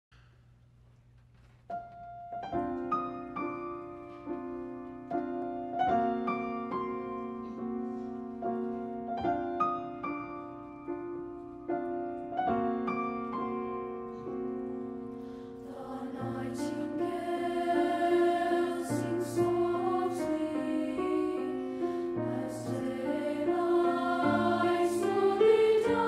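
Piano introduction of separately struck notes, then a middle-school mixed choir enters singing with the piano about two-thirds of the way through, growing louder.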